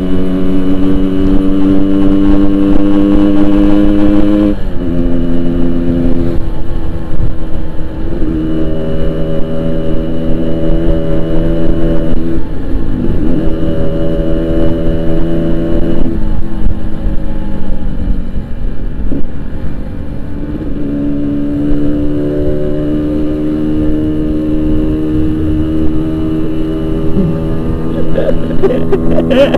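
Yamaha RX-King 135cc two-stroke single with a Boban aftermarket exhaust, ridden on the road. The exhaust note holds steady, then drops and climbs again several times as the throttle changes.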